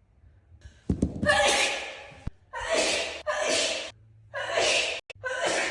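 A person's sneezing fit: about five breathy sneezes in quick succession, roughly a second apart, starting about a second in.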